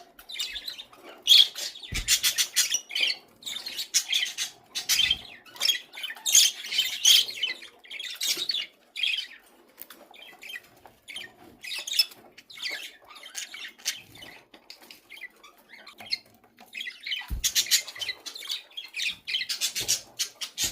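Budgerigars chattering and squawking in rapid high-pitched runs, with a few soft thumps.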